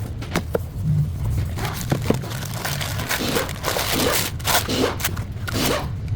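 Irregular clicks, knocks and short scrapes from hands working with tools and parts, over a steady low hum.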